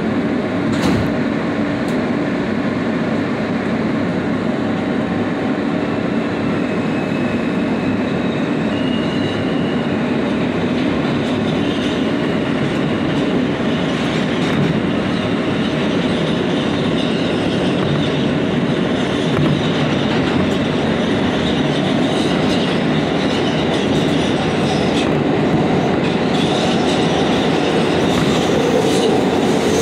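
New York City Subway G train heard from inside the car as it pulls out of a station and runs into the tunnel: a steady rumble and rattle of the wheels on the track. There are brief faint squeals of the wheels several seconds in, and the sound grows a little louder near the end.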